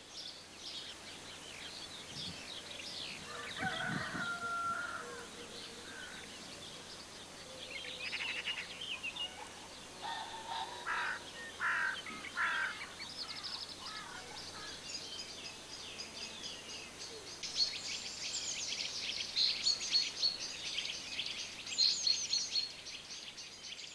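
Small birds chirping and trilling, with a rooster crowing among them. The chirping grows busier in the second half.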